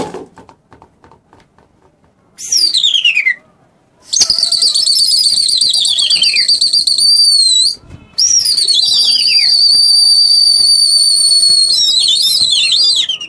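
Loud two-finger whistling by a pigeon keeper: one short falling whistle, then two long whistles that each sweep down and hold a high warbling note for several seconds, with a wobble near the end. It is the keeper's whistle signalling his flying pigeon flock.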